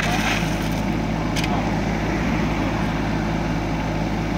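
Kubota mini excavator's diesel engine running steadily, with one sharp click about a second and a half in.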